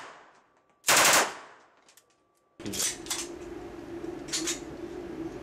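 A short burst of automatic fire from a PM-63 RAK 9×18 mm submachine gun about a second in, several shots fired in quick succession, with a brief echo after it. After a pause, quieter clicks sound over a low hum.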